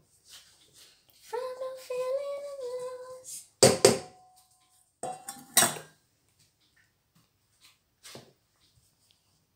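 A stainless steel mixing bowl clanks twice against the counter or a utensil, loud and sharp, the first clank ringing briefly. Before that a woman hums a short tune.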